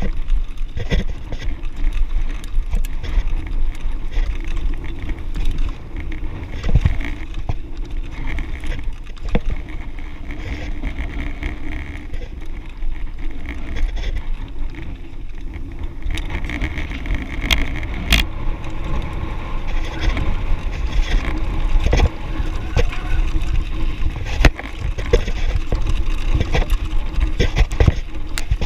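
Mountain bike rolling down a dirt and gravel trail: tyres crunching and the bike rattling and knocking over bumps, with a steady wind rumble on the handlebar camera's microphone.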